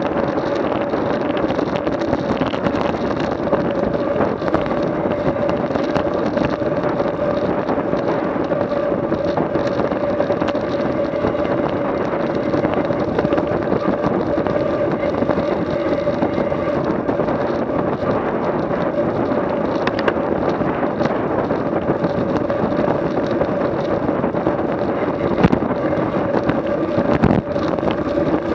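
A vehicle engine running steadily at constant speed, with a couple of brief knocks near the end.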